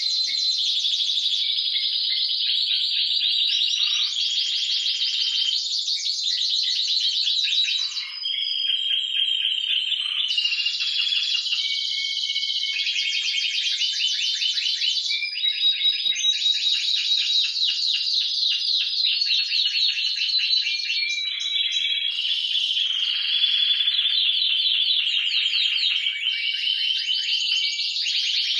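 Timbrado Español canaries singing without a break: runs of rapid trills and rolls that switch to a new pattern every two to four seconds.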